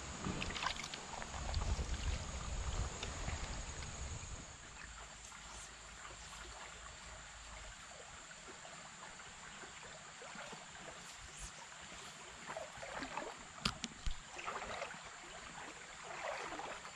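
Shallow creek water running and trickling steadily over a stony riffle. There is a low rumble over the first few seconds and a couple of sharp clicks a little past the middle.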